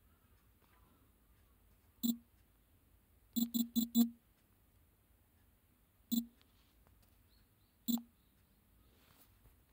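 Phone on-screen keyboard key-press clicks while a word is typed: a single click about two seconds in, a quick run of four, then two more spaced apart.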